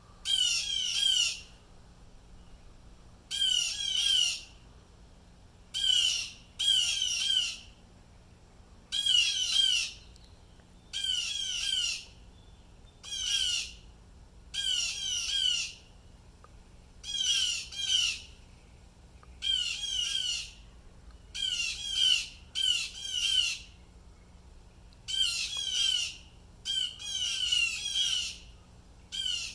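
Blue jays calling over and over, one call every second or two, sometimes two in quick succession. The calls sound like distress or alarm calls.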